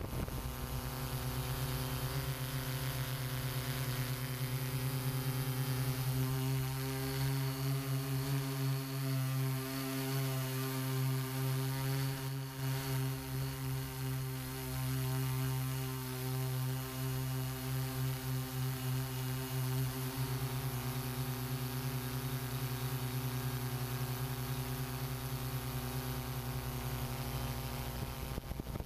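Electric motors and propellers of a hexacopter drone humming steadily with several fixed tones at once, a little louder for a stretch in the middle.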